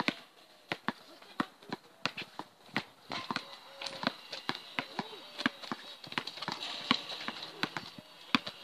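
A basketball dribbled on an outdoor concrete court, a sharp slap with each bounce, coming unevenly at roughly two to three a second.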